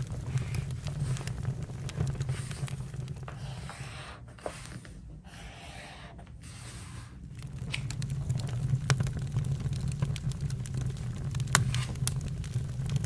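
Campfire crackling, with scattered sharp pops and snaps over a steady low rumble of the flames; the crackle eases off for a few seconds midway, then picks up again.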